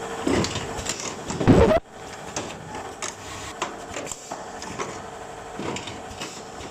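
Cup mask welding machine working: mechanical clatter and clicks over a steady hum. The hum and clatter cut off abruptly about two seconds in, leaving lighter scattered clicks until the hum returns near the end.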